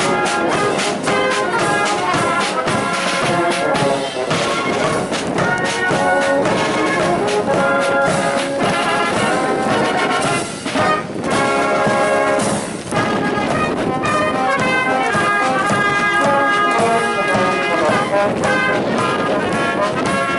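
Military band playing a march: brass melody in trumpets and trombones over regular drum beats.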